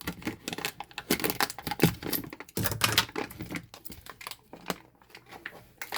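Plastic packaging of disinfectant wipes being opened and handled: rapid crinkling and clicking, busiest in the first half and sparser toward the end.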